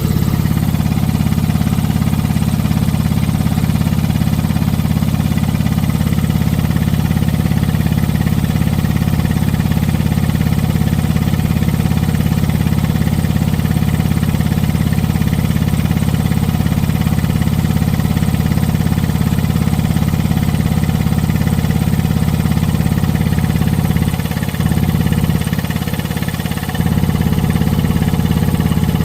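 Quincy Model 5120 25 HP two-stage reciprocating air compressor running steadily under load, pumping up pressure. Its level dips briefly about 24 seconds in and again for about a second around 26 seconds, then comes back.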